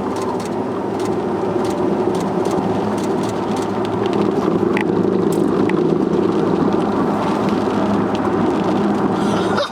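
Steady drone of a vehicle driving, with scattered light ticks.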